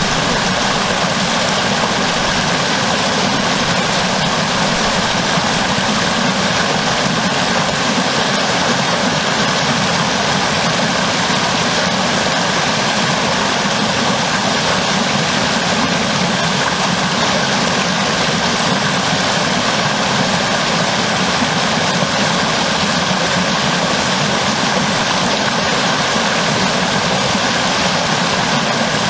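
A small forest river pouring over a submerged log in a foaming cascade: a steady, unbroken rush of falling water.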